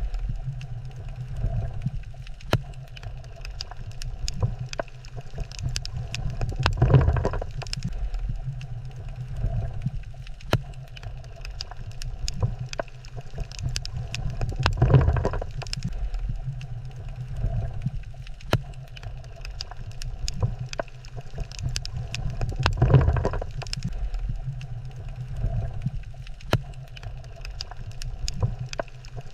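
Underwater reef ambience: a constant crackle of sharp clicks, with a low rumbling surge of water about every eight seconds.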